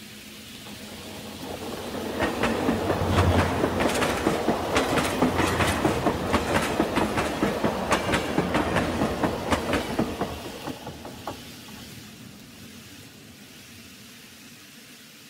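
N scale model trains running past: the wheels click over the rail joints in a quick, even rhythm, growing louder over the first two seconds and fading away after about ten seconds as the trains move off.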